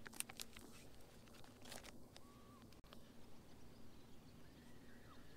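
Near silence, with a few faint crinkles and clicks of a plastic bait bag and a soft-plastic ribbon-tail worm being handled and untangled, mostly in the first two seconds, over a faint steady hum.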